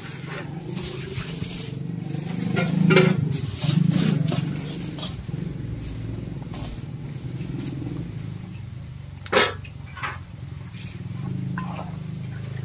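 Flour-coated ginger, garlic and onion sizzling and crackling in hot oil in a wok, worked with a metal spider strainer, with a sharp clank of metal on the wok about nine seconds in. A low steady hum runs underneath, rising into two louder low sounds around three and four seconds in.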